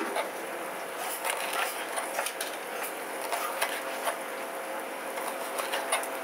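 Knife cutting raw fish fillets into strips on a wooden chopping board, with irregular light taps of the blade on the board over a steady street-stall background hum.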